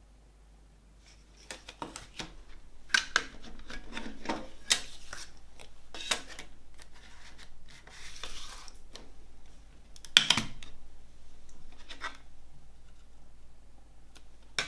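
Hands handling a clear plastic CD jewel case and its contents: a string of plastic clicks and taps starting about a second and a half in, with a longer scrape a little after the middle. The loudest click comes about ten seconds in, as the disc is taken off the case's centre hub.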